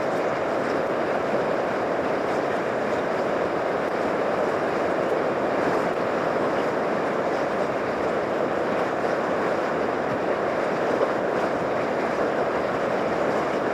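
River whitewater rushing steadily through a rapid and its standing wave, an even, unbroken rush of water.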